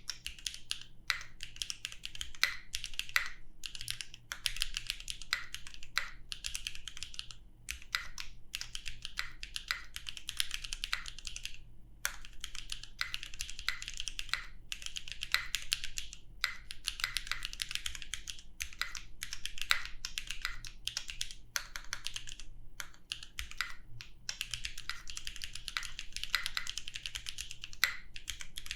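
Continuous fast typing on a custom mechanical keyboard with lubed linear switches (BuiltByNim linears, Krytox 205g0) on a carbon fibre plate with GMK keycaps: rapid key clicks in runs broken by brief pauses.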